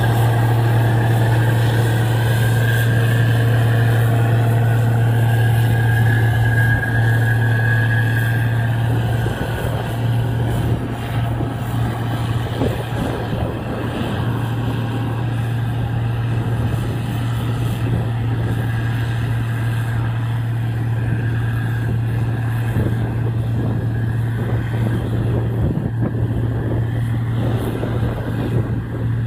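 Gleaner R55 combine harvesting wheat: engine and machinery running with a steady low drone that gets somewhat quieter after about ten seconds as the combine moves away.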